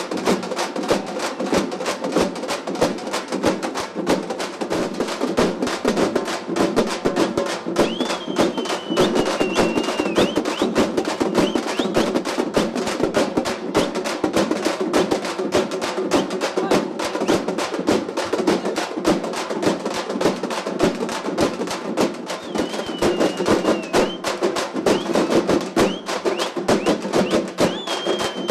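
A troupe of large frame drums beaten with sticks, playing a fast, dense rhythm together. A high falling tone cuts through briefly three times.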